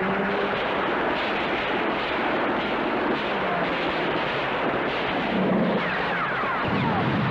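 Battle sound effects on an old film soundtrack: a continuous din of gunfire and explosions. Several brief falling whistles come about six seconds in.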